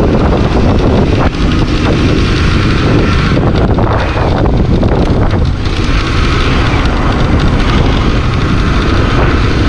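Steady wind rush on the microphone of a moving motorcycle, with the bike's running engine and road noise underneath.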